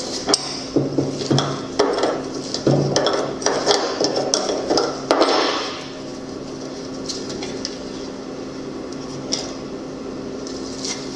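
Metal tools and parts clinking and knocking, a quick run of sharp clinks for about six seconds, then only a few, over a steady low hum.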